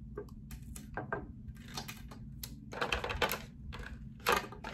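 Small hard objects, such as plastic makeup cases and tools, clicking and clattering as they are picked up and put away in a tidy-up. The knocks come irregularly, with a busier run of them about three seconds in and a louder one near the end.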